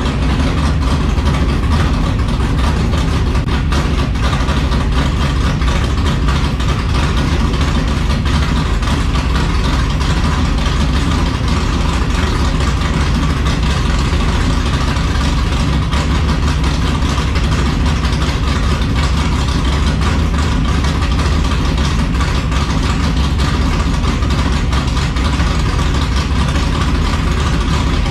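A 383 stroker small-block Chevy V8 with headers idling steadily in an S10 pickup, with no revving.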